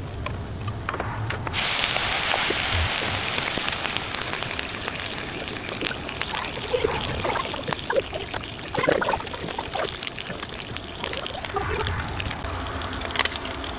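Sweet potato slices sizzling on a hot Blackstone flat-top griddle, a steady hiss that comes up suddenly about a second and a half in, with a few faint clicks.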